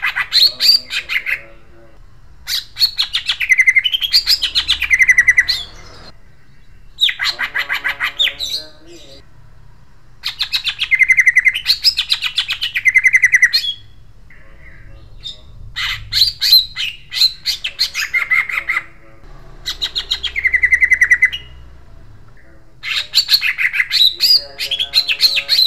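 Caged male greater green leafbird (cucak ijo) singing in repeated long rolling bouts of rapid, harsh, sharp sweeping notes. There are about seven bouts, each one to three seconds long, with short pauses between.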